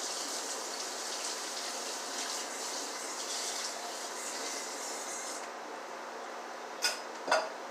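Kitchen tap water running as an empty tin can is rinsed out, shut off suddenly about five seconds in. Two sharp knocks follow near the end.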